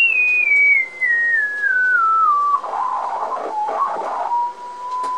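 Sine-wave test tone from a small vintage Golden Voice speaker, gliding down in small steps from a high whistle to about one kilohertz as the frequency is turned back. It wavers briefly about three seconds in, then holds a steady 1 kHz tone.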